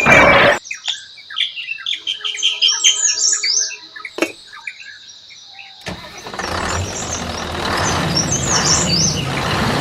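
Birds chirping and twittering over a quiet background, with a single click about four seconds in. About six seconds in, an engine starts running with a steady rough pulse.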